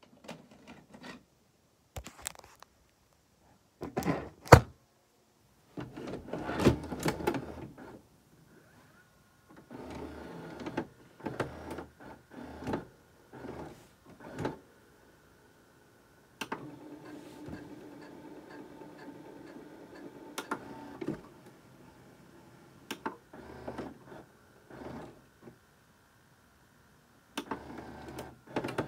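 VCR taking in a VHS cassette: a series of clicks and clunks from the loading mechanism, with short bursts of motor whirring as the tape is drawn in and threaded. About halfway through comes a steady motor hum with occasional clicks, which fades, and a final whirring burst near the end.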